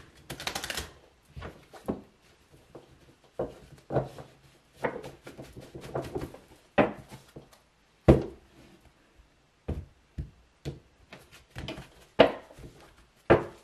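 A deck of tarot cards being shuffled by hand: a short dense riffle at the start, then irregular soft slaps and taps of the cards, roughly one a second, some sharper than others.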